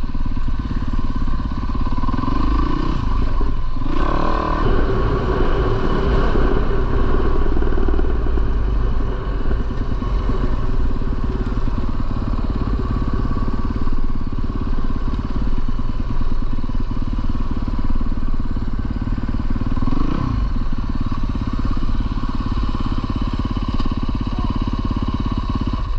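450cc four-stroke single-cylinder dirt bike engine running while being ridden, its revs rising and falling as the rider works the throttle, with noticeable shifts about 3 to 4 seconds in and again about 20 seconds in.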